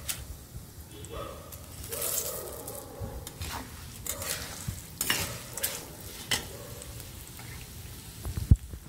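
A flat metal spatula scraping and knocking against a metal kadai as a tempering of dals, peanuts and dry red chillies is stirred in hot oil, with the oil sizzling underneath. There are irregular scrapes every second or so, the sharpest near the end.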